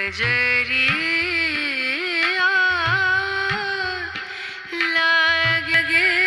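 A song with a female lead vocal, sung with sliding, ornamented pitch over a repeating bass beat.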